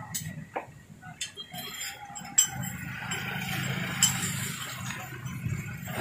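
Parakeet climbing its wire cage, beak and claws clinking against the metal bars in scattered clicks, the sharpest about two and a half seconds in. A low steady hum runs underneath through the second half.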